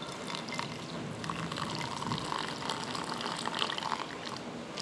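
Hot water being poured into a ceramic bowl of green fermented glutinous rice (tape ketan), filling the bowl.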